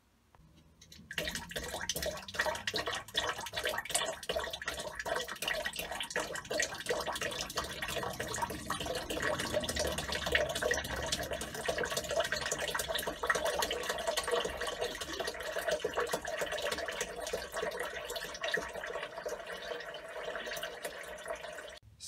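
Water from a caravan tap supplied by a 12 V water pump, spurting in pulses with rapid clicking while the pump's pressure switch is uncalibrated. From about halfway through, the flow settles into a steadier stream as the switch is turned into adjustment.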